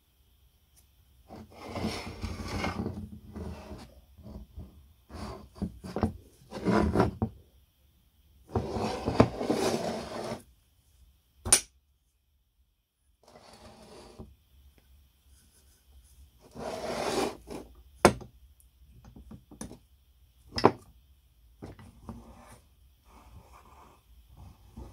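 Old cast-iron meat grinder being handled and worked by hand: its dry, unrestored mechanism gives scraping, grating stretches of a second or two, with a few sharp metal clicks as the housing latch and hinged halves are worked.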